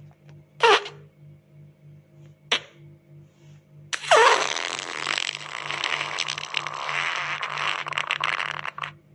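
Fart sound effects: a short fart about half a second in, a brief one around two and a half seconds, then one long, noisy fart lasting about five seconds.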